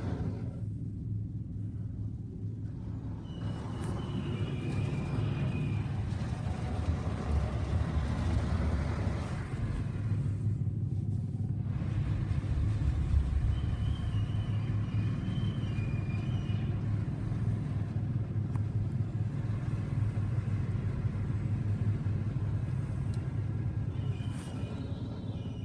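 Coleman Hanna FusionX tunnel car wash equipment working on a car, heard from inside the car: a steady low rumble under a hiss of machinery and water, with faint high squeaks a few times.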